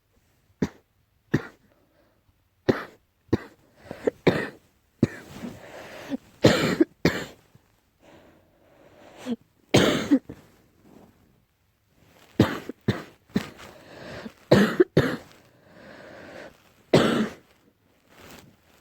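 A person coughing in repeated fits, with short sharp coughs coming singly and in quick runs of two or three. The uploader puts the cough down to allergy.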